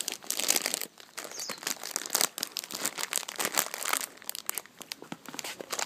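Irregular crackling and rustling, a dense run of sharp crinkly ticks like something being crumpled or handled close to the microphone, loudest about half a second and two seconds in.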